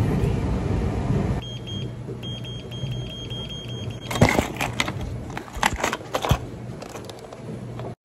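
A loud rushing noise cuts off about a second and a half in. Then comes the steady hum of a treadmill motor, with a quick run of about a dozen short high beeps from the treadmill console as its buttons are pressed. A few sharp knocks follow.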